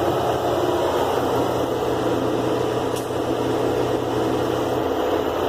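LG WD-12580BD direct-drive front-loading washing machine spinning at high speed, a steady whir and hum with no banging. The drum runs stable on newly fitted shock absorbers and springs.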